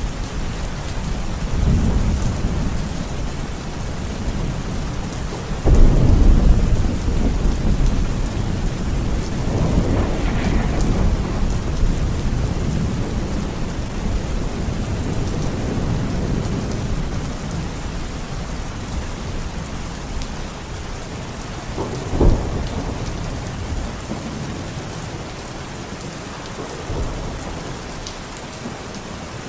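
Steady rain falling, with rolling thunder: a loud rumble breaks in suddenly about six seconds in, and a short, sharp clap comes near the end of the second third, after which the thunder dies away.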